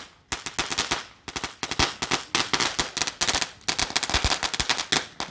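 Firecrackers going off in dense rapid volleys of sharp bangs, with a couple of brief pauses between bursts.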